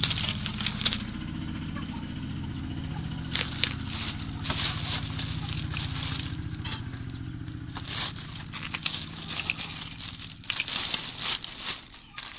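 A plastic bag rustling and crinkling while a hand rummages through the small stones and shell pieces inside it, clicking and clattering in bursts, the longest near the end. A low steady hum runs underneath.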